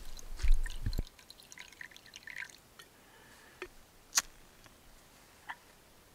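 Water being poured into a pot in the first second, then a few faint drips and three sharp clicks.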